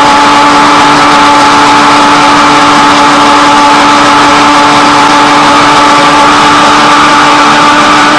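Electric countertop blender running with a loud, steady motor whine as it blends egg, onion and garlic into a thick marinade with almost no liquid.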